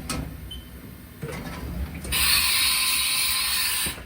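Haas Mini-Mill CNC machining center's mechanisms clicking and clunking, with a loud hiss of air starting about two seconds in, lasting nearly two seconds and cutting off suddenly.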